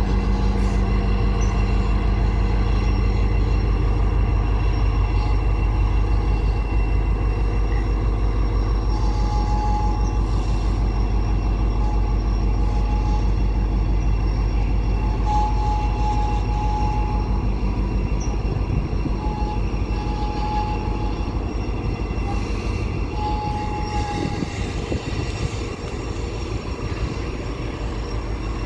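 CN freight train rolling past with a steady low rumble, slowing as if to stop. Short, high-pitched wheel squeals come and go through the middle of the stretch.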